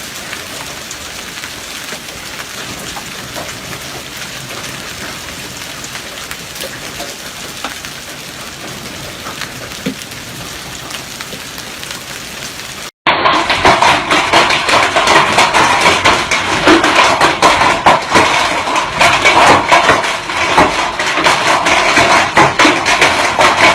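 Hailstorm. For about the first half there is a steady hiss of heavy falling precipitation with occasional sharp ticks. Then an abrupt cut to a much louder, dense, rapid clatter of hailstones striking.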